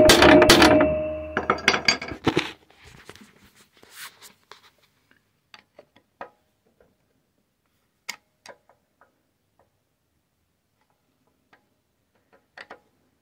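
A flat screwdriver being hammered into a broken muffler thread stuck in a lawnmower's engine block, a few sharp metal strikes over music that fades out within the first two seconds or so. After that, only scattered faint metallic clicks and taps from the screwdriver tip in the stuck thread.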